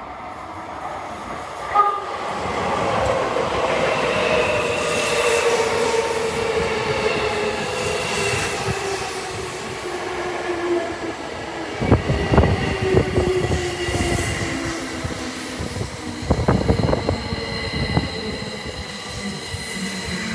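Tozai Line electric train running into the station: its motor whine falls steadily in pitch as it slows, with a short sharp tone about two seconds in. Later the wheels clatter over rail joints in two bursts as the cars pass close by.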